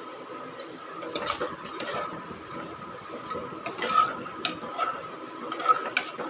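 Light, scattered clicks and scraping of kitchen utensils in a pressure cooker pot as coconut milk is added to the rice, over a steady faint high-pitched hum.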